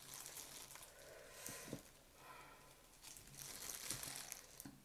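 Faint crinkling of thin disposable plastic gloves as gloved hands pull apart a whole roast chicken, with a few soft clicks.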